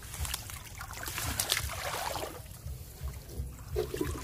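Water splashing and trickling as a woven bamboo scoop basket is pushed through and lifted out of shallow water, busiest in the first two seconds and loudest about a second and a half in, then dying down.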